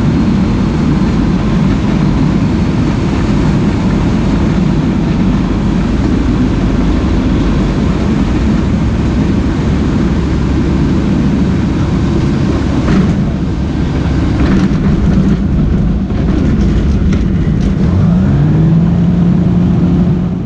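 Ikarus C42 microlight's engine and propeller heard inside the open cockpit during a landing and roll-out on a grass runway: a steady loud drone with rushing air, and a few short knocks and rattles from the wheels on the grass. Near the end the engine note rises and then holds steady.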